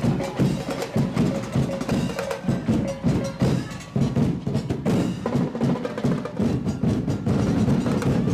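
Percussion music of drums and wood blocks playing a fast, steady beat, with a short dip about four seconds in.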